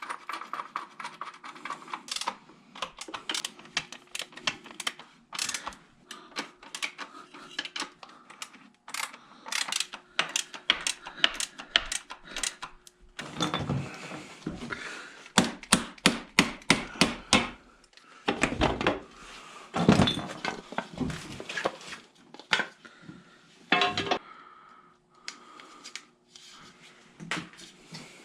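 Metal tools and pump parts clinking, knocking and rattling in irregular clusters, busiest in the middle and thinning out toward the end, over a faint steady hum.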